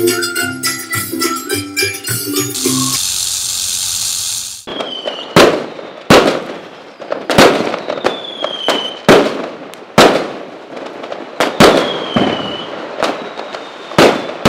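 Music ends about three seconds in, followed by a short hiss. Then comes a fireworks display: a string of sharp bangs about once a second, some of them with a short falling whistle.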